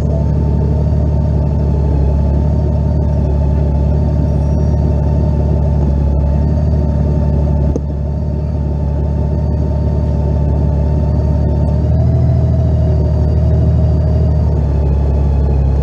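Honda Valkyrie's flat-six engine running at a steady low cruising speed, a constant low drone with a slight rise in level about twelve seconds in.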